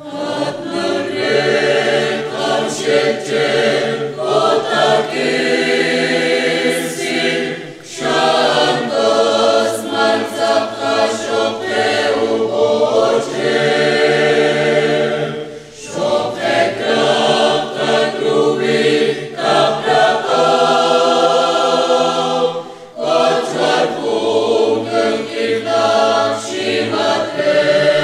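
Mixed choir of men's and women's voices singing a hymn in K'iche' Maya, in long phrases with brief breaks between them.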